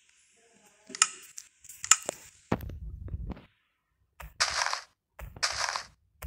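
Hand woodworking: two sharp knocks on wood, then rasping strokes of a hand tool on wood, about one a second.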